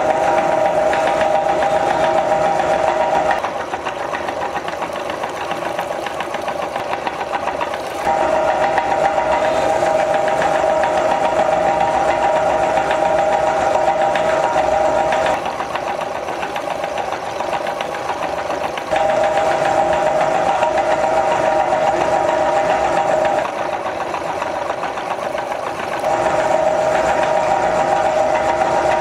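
Electric meat grinder motor running with a steady whine. It drops to a quieter, lower level three times and then comes back up.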